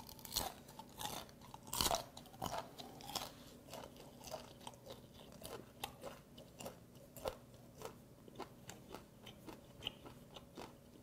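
Close chewing of steamed bear shrimp with its shell on: an irregular run of wet crunches as the shell is bitten through, the loudest about two seconds in.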